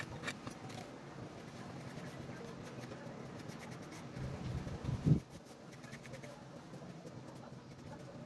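Pencil scratching across a plywood board as an outline is drawn, with a few light clicks near the start and a brief low rumble ending in a thump about five seconds in.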